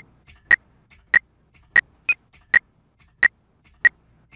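Short electronic blips, one per press of the F key in Blender, coming about every 0.6 seconds, eight in all, one slightly higher in pitch. They are audible cues for repeated keypresses, here the fill command being repeated.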